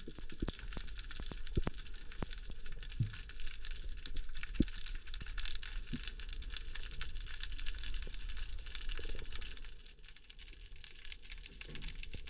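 Underwater ambient sound: a steady hiss full of small clicks and crackles, with a few louder knocks. It turns quieter about ten seconds in.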